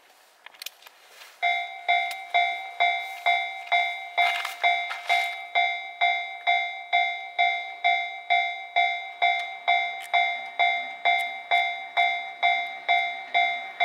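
Japanese railway level-crossing warning bell ringing, a loud electronic ding repeating evenly about twice a second, starting about a second and a half in.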